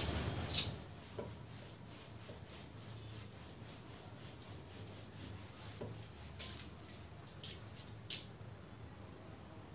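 Whiteboard duster wiping across a whiteboard in a few short rubbing strokes, most of them bunched about six to eight seconds in.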